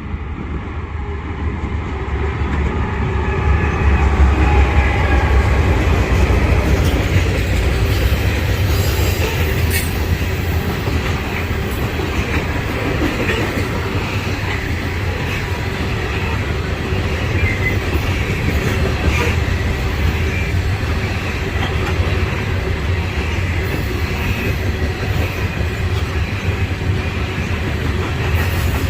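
Norfolk Southern coal train passing close by: a diesel locomotive's heavy rumble swells over the first few seconds, then loaded freight cars roll past with steady wheel-on-rail noise, clacking and occasional brief high-pitched squeals from the wheels.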